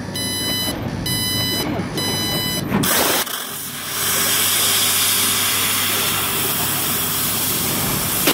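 Fiber laser cutting machine working a steel sheet: for the first few seconds high whining tones start and stop about twice a second as the cutting head moves between small holes. About three seconds in, a steady loud hiss of the gas jet from the cutting nozzle takes over as the head cuts continuously, over a low steady machine hum.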